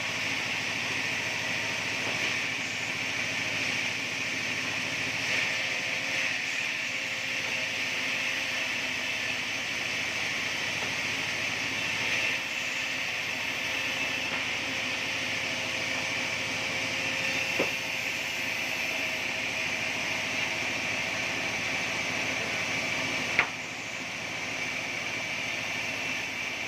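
Band sawmill running steadily on acacia wood, an even, high-pitched mechanical noise. There is a sharp click about two-thirds of the way through and a louder knock near the end, after which it is slightly quieter.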